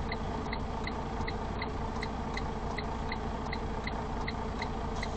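Semi truck's turn-signal flasher clicking steadily, nearly three clicks a second, over the low hum of the idling truck engine in the cab.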